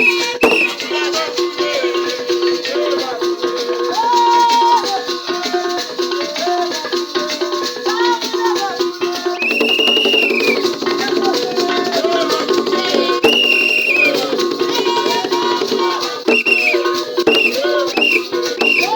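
Traditional music with a rattle shaken fast and continuously, and high held notes rising and falling over lower sustained tones.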